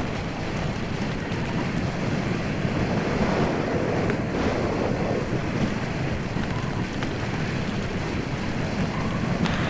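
Steady rush of wind over the microphone of a hang glider in flight, from the airflow of the glider's airspeed.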